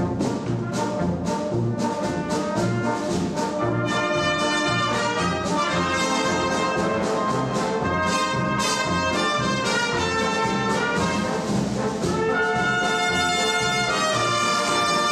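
Wind band playing live: trumpets, trombones, saxophones, tubas and drums together over a steady beat.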